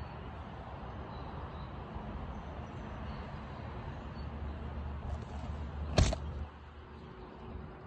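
Ninth-generation Honda Civic Si's 2.4-litre four-cylinder, fitted with an aftermarket downpipe and exhaust, idling with a steady low hum. A single sharp click about six seconds in, after which it is a little quieter.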